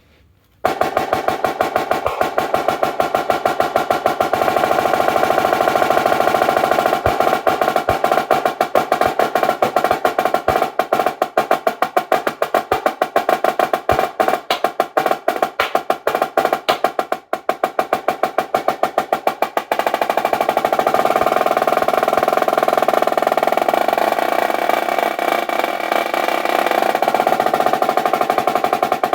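Marching snare drum played solo: fast, dense sticking of rapid strokes and accents, starting about half a second in. After a brief break around the middle, the playing settles into a long, sustained roll.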